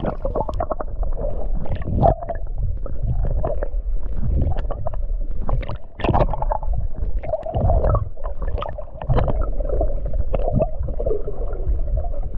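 Muffled underwater gurgling and rumbling picked up by a submerged camera, with irregular clicks and knocks and a wavering murmur of water against the housing.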